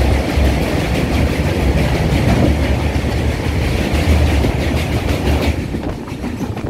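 Train running over a steel truss railway bridge, heard from a coach window: a loud, steady rumble and clatter of wheels on rails. About five and a half seconds in the hissing upper part of the sound falls away and it turns quieter as the train comes off the bridge.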